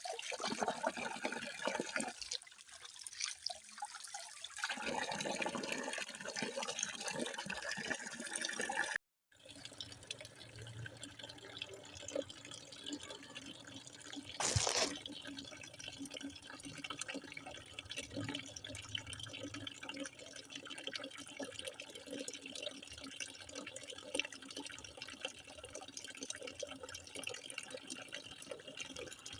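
Water running and trickling steadily. It cuts out for a moment about nine seconds in, and there is a brief louder splash about halfway through.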